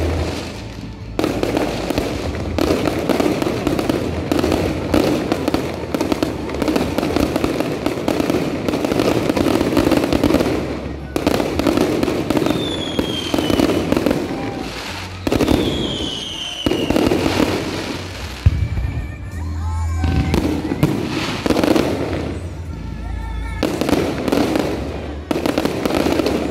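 Fireworks display: a dense run of crackling bursts and bangs, with two falling whistles about midway.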